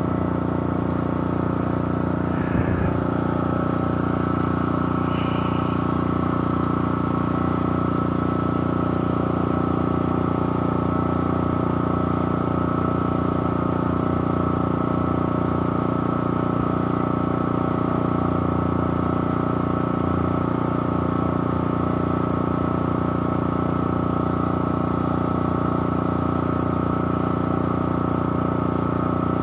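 A motor or engine running steadily, a constant hum with several held tones that do not change.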